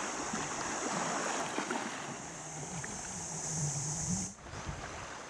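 Waves washing on a beach, with a steady high hiss and a low wavering hum like a distant engine. All of it cuts off abruptly about four seconds in, leaving a quieter wash.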